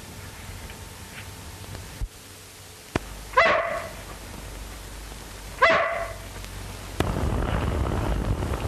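German shepherd dog barking, two loud barks a couple of seconds apart, with a couple of sharp clicks just before them. A steady background rumble starts near the end.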